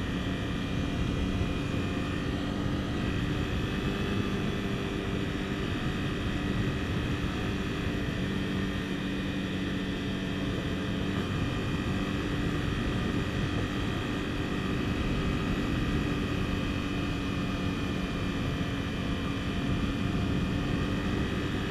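Honda CBR250R's single-cylinder engine running at a steady cruise, a continuous drone with only slight changes in pitch.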